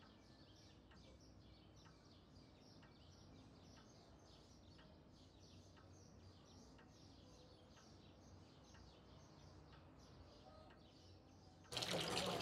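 Quiet room tone with small birds chirping faintly in a steady string of short high chirps. Near the end this cuts to a tap running water into a sink.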